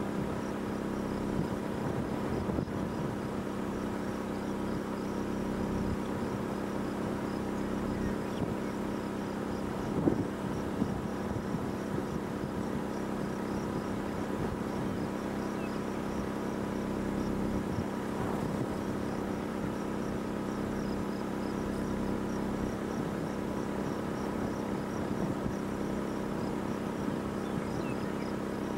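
Crickets chirping in a fast, even pulse over a steady low mechanical hum, with one brief thump about ten seconds in.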